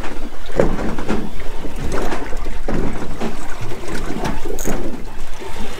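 Choppy sea slapping and splashing against a small boat's hull in irregular surges, over a steady low rumble of wind on the microphone.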